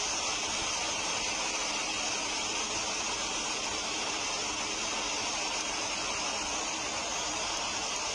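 Fast-flowing river water rushing through rapids, a steady, even hiss-like rush.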